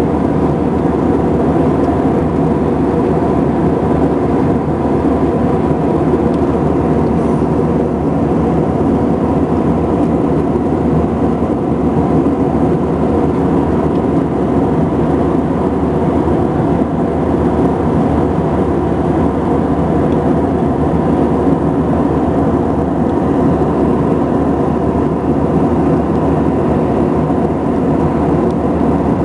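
Inside the cabin of an Airbus A319 in flight: the steady drone of the jet engines and airflow, even and unbroken, with a few steady hum tones running through it.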